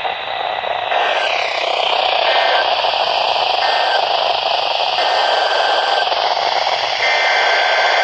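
Steady static hiss from a Midland weather radio, with faint steady tones coming and going every second or so.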